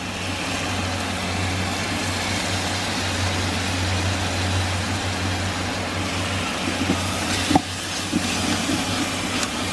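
Steady frying hiss with a low rumble from a large aluminium pot of onion-tomato masala as Kashmiri chilli paste goes in. A metal spatula clicks against the pot a couple of times near the end.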